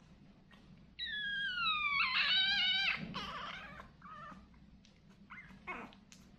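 Puppy whining: a high, drawn-out cry that falls in pitch for about a second, then wavers and breaks into a rougher squeal. A few short, fainter whimpers follow near the end.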